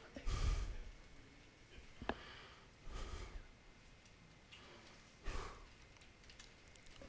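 Quiet room tone with a few faint, soft noises and one sharp click about two seconds in.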